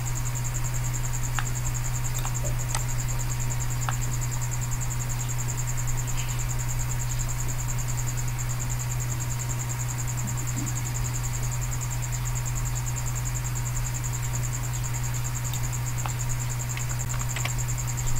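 Steady low electrical hum with a high, fast-pulsing whine over it, constant throughout. A few faint short clicks are scattered through it.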